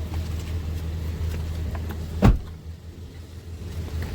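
Car engine running with a steady low hum, and one heavy thump a little over two seconds in.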